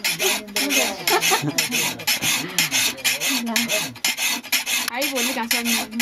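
Hand file rasping along the edge of a steel sickle blade in rapid, even back-and-forth strokes, sharpening it.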